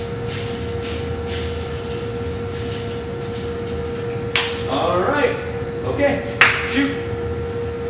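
Drum coffee roaster running with a steady hum while freshly roasted beans are stirred by hand in its cooling tray, a dry rattling rustle. Two sharp slaps come about four and six seconds in.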